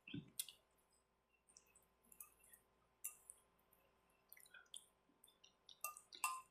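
Faint, scattered mouth clicks and small wet smacks of eating, thickening into a cluster near the end.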